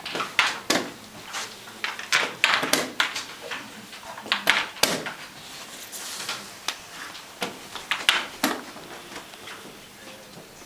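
Irregular sharp clacks of chess play: wooden pieces set down on boards and chess clock buttons pressed in quick succession by several rapid-chess players at once.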